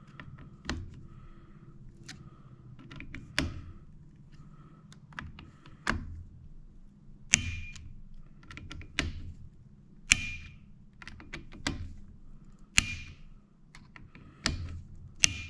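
Scope-ring screws being torqued to 15 inch-pounds with a torque driver: a run of sharp clicks and taps about every second or so, several with a short metallic ring.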